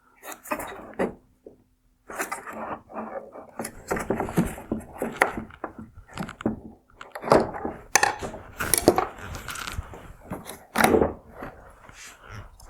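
Irregular plastic clicks, knocks and scraping as the AFS (adaptive front-lighting) swivel motor is worked loose and removed from the back of a Mazda CX-5 LED headlight housing.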